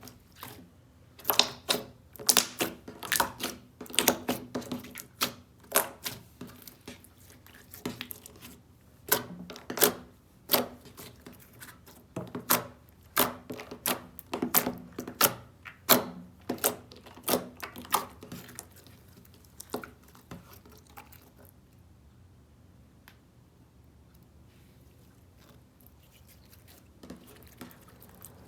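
A series of crisp crackling and crunching sounds as crunchy ASMR material is pressed, cut or crushed. They come quickly and irregularly at first, fade out about two-thirds of the way through, and start again near the end.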